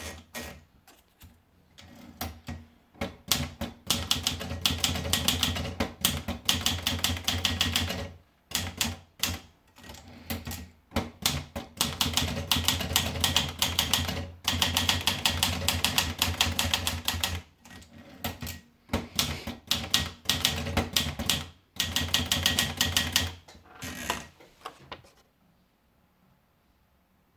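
Underwood 310 portable manual typewriter being typed on: fast runs of key strikes lasting several seconds each, broken by short pauses and a few scattered single strokes. The typing stops about two seconds before the end.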